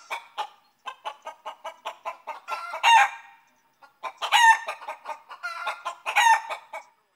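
Chicken clucking in quick runs, each building to a longer, louder cackle, three times over.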